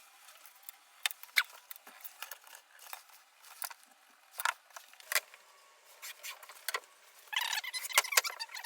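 Pencil and measuring tool on a masking-taped worktop while marking a line 10mm in from the sink outline: scattered light taps and clicks, then a busier scratchy scraping starting about seven seconds in.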